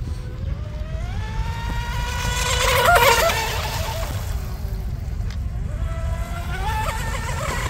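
Electric brushless motor of a small RC mono hull boat whining at speed. The pitch rises to a loud peak about three seconds in as the boat passes close, then falls and climbs again near the end, over a steady low rumble.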